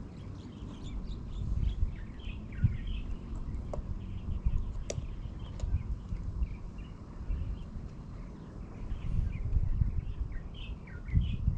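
Small birds chirping repeatedly, short rapid calls, over a low uneven rumble that swells and fades and grows louder near the end.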